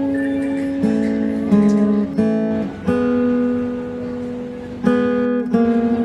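Background music on acoustic guitar: plucked and strummed chords, changing every second or so.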